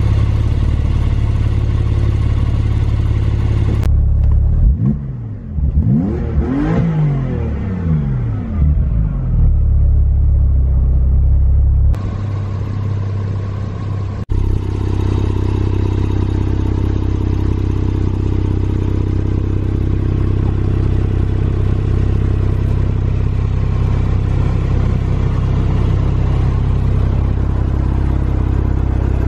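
Porsche 911 Targa 4S flat-six engine idling, blipped several times about five to nine seconds in with the pitch rising and falling, then settling back to a steady idle.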